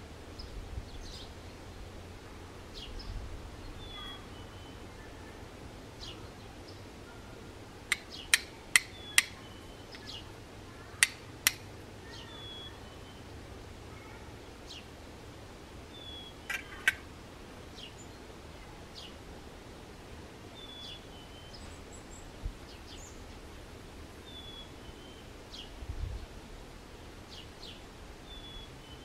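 Medieval-style fire steel struck against flint to throw sparks onto char cloth: sharp metallic clicks, four in quick succession about eight seconds in, two more a couple of seconds later and one near seventeen seconds. Small birds chirp throughout.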